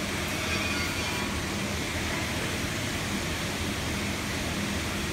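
Steady machine noise: an even rushing hiss with a faint low hum, unchanging throughout.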